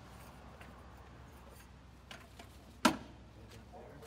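Fire hose and its fittings handled at a fire engine's pump panel: a few light clicks, then one sharp knock just before three seconds in.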